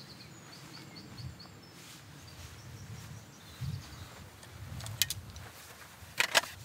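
Outdoor field ambience: wind rumbling on the microphone, with a bird chirping a quick run of short high notes in the first second or so. Near the end come a few sharp clicks.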